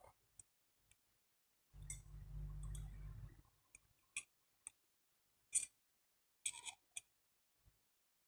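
Faint handling of small CPU-cooler mounting hardware while it is taken apart again: a low rubbing rumble for about a second and a half, then a handful of separate sharp clicks.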